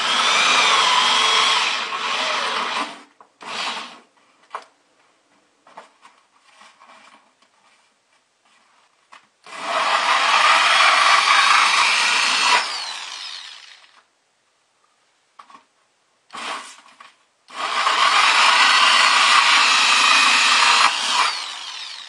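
Electric drill spinning a hole saw as it cuts holes through the wall of a plastic bucket and its liner: three runs of about three seconds each, with short handling clicks in the pauses between them.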